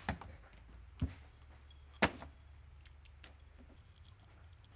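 Small metal carburetor parts being handled while an SU float-chamber lid is assembled: three sharp clicks about a second apart, the third the loudest, then a few faint ticks, over a faint low hum.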